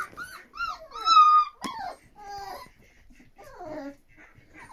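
Young laika puppies, about a month old, whining and squealing in a string of short rising-and-falling cries. The loudest is one longer, held cry about a second in. A single sharp click follows just after it.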